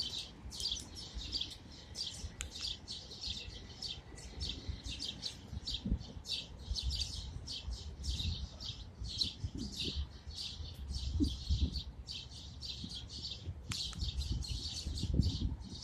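A flock of a dozen or so small birds at a feeder chirping nonstop, many short chirps overlapping, with a faint low rumble beneath.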